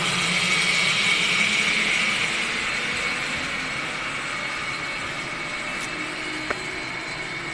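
Zipline trolley pulleys running along the steel cable: a steady high whirring, loudest at first and slowly fading as the rider moves away.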